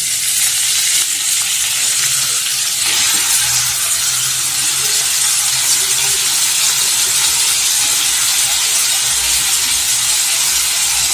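Chopped onions sizzling as they drop into hot oil with cumin seeds in a frying pan; the sizzle starts suddenly and then runs steadily.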